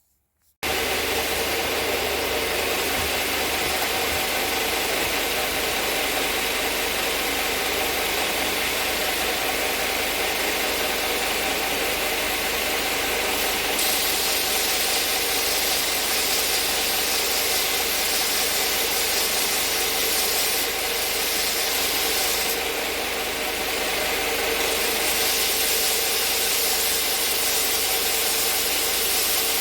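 Shopsmith belt sander, driven by the Power Pro headstock at 1525 RPM, running with an 80-grit belt while a hardwood piece is sanded flat on it. The sound cuts in abruptly just under a second in, and its hiss changes a few times as the wood is worked.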